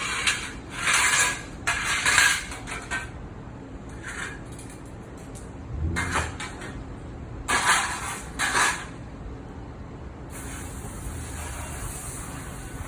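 Kitchen items being washed in a metal-lined sink: dishes and pans clattering against the metal in several loud bursts, then a steady hiss of running water from a little after ten seconds in.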